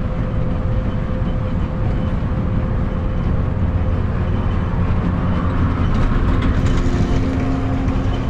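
Intercity bus at highway speed heard from inside the cab: a steady low rumble of engine and road noise.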